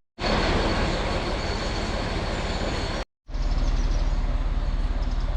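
Narrow-gauge heritage train running along the track, in two short edited clips split by brief silent cuts: first a loud rushing noise with a thin, steady high whine, then a steady low rumble.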